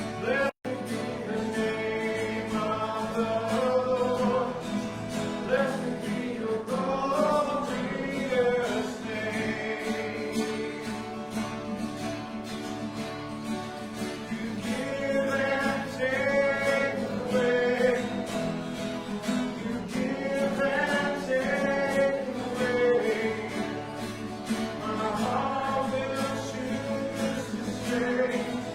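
Congregation singing a worship song with guitar accompaniment.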